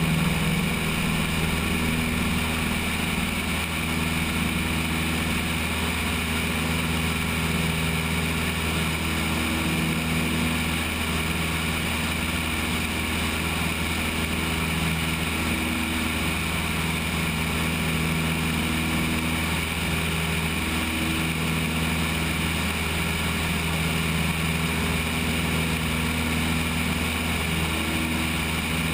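Cessna 172's piston engine and propeller running steadily at climb power just after takeoff, heard from a camera mounted on the wing, with an even drone and constant airflow noise.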